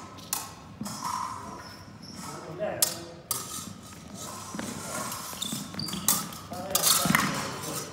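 Épée fencing at close quarters: irregular sharp clicks of steel blades meeting and thumps of shoes stepping and stamping on a sports-hall floor, with a louder flurry about seven seconds in.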